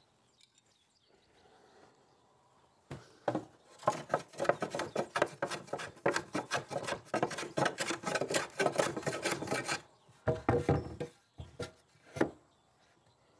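A hand tool working 2x4 countertop boards: a quick, steady run of scraping strokes, about six a second, lasting some six seconds, followed by a few separate knocks near the end.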